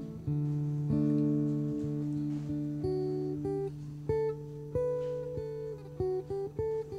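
Slow instrumental music: single plucked notes, one every half-second or so, over a held low note.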